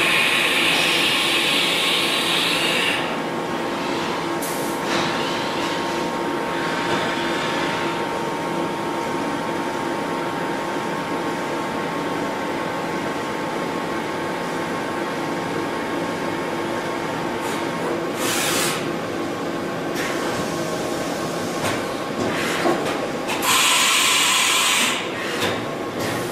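Haas HS-1RP horizontal machining centre running with a steady mechanical whine. Loud hissing comes in bursts at the start, briefly around 18 seconds in, and again about 23 seconds in.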